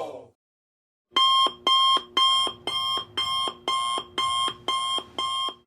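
Digital alarm clock beeping: nine short, even electronic beeps at about two a second.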